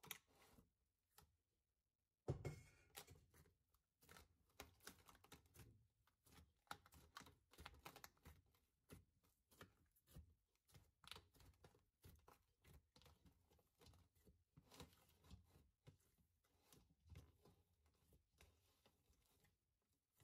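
Hands kneading and pulling soft, sticky yeast dough in a stainless steel bowl: a faint run of quick, irregular soft noises, the loudest about two seconds in.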